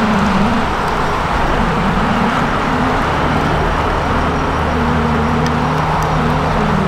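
Traxxas TRX-4 RC crawler's electric motor and geared drivetrain whining as it climbs rocks, the pitch rising and falling with the throttle, over a steady rushing noise.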